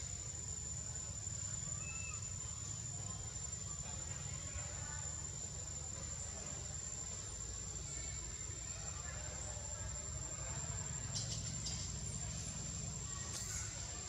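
Insects calling with one unbroken high-pitched tone, over a low rumble, with faint voices and a few sharp clicks near the end.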